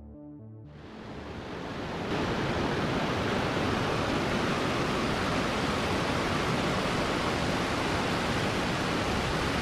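Rushing water from a fast, white-water mountain river below a waterfall: a steady, even rush that fades in during the first two seconds as synth music ends.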